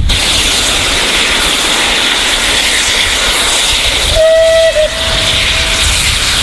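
Merchant Navy class steam locomotive 35028 Clan Line hissing steam loudly, and about four seconds in its steam whistle sounds one steady note for about a second and a half, breaking briefly before it fades.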